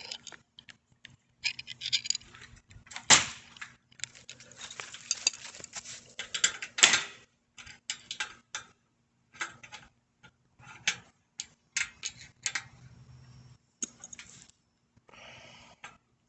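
Metal clinking and scraping of crescent wrenches working the rear axle nuts of a bicycle to loosen the back wheel: scattered clicks, with a busy run of scraping and clanks in the first half and sparser taps after.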